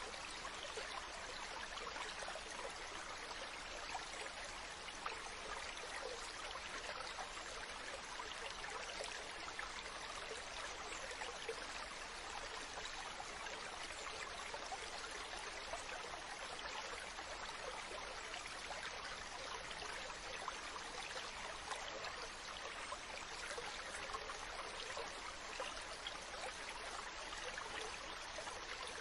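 Mountain stream: water running and splashing over rocks in a steady, even rush, with a thick busy sound of small splashes and no pauses.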